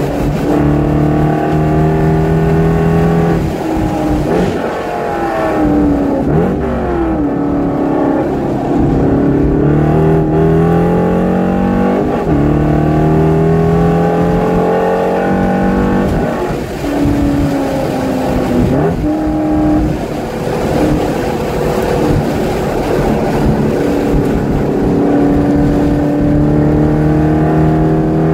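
Corvette C5's 5.7-litre V8 heard from inside the cabin, pulling hard on track. The engine note climbs under acceleration and drops sharply several times at gear changes and lifts.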